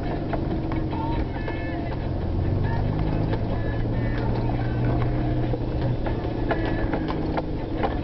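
Vehicle engine running steadily under load, heard from inside the cabin, with scattered rattles and knocks from driving over a rough dirt track.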